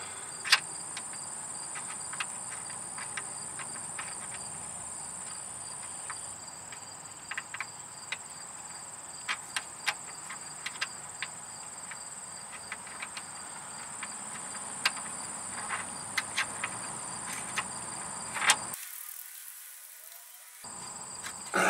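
Crickets chirring steadily in a high, pulsing drone, with scattered light clicks and taps as a bolt is worked by hand.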